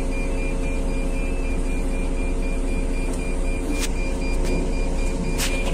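Heavy diesel engines of a Scania mining tipper truck and a loading excavator running steadily, with a high beeping alarm pulsing throughout.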